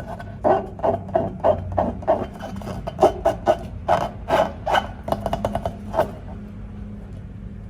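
Slime being worked by hand: a run of short sticky strokes, several a second, that stops about six seconds in, leaving a faint steady hum.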